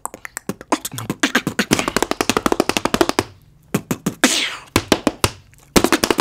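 Beatboxing in a fast, syncopated rhythm of vocal kicks, snares and clicks, mixed with the taps of tap shoes. The rhythm drops out briefly about three seconds in, and a fast run of strikes starts near the end.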